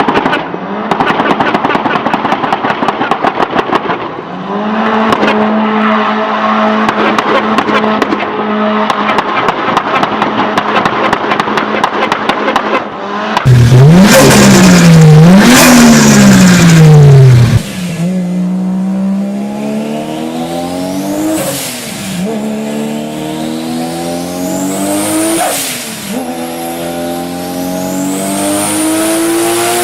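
Turbocharged car engines in a run of short clips. First comes a fast fluttering rattle over a running engine. Then an engine is revved hard up and down a few times, very loud. Last, a car accelerates through the gears: the engine pitch climbs with two gear shifts, and a high turbo whistle climbs with it.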